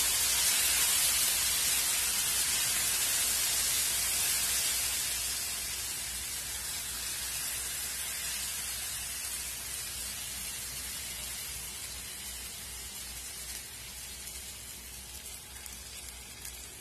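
Thin rava dosa batter sizzling on a hot dosa griddle as it is poured, a hiss that is loudest at first and slowly fades as the lacy, hole-filled batter sets.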